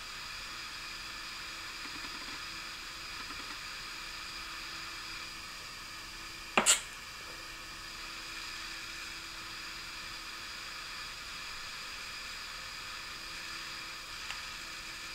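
Steady low hiss of room noise with a faint hum that comes and goes, broken once, about six and a half seconds in, by a single sharp click.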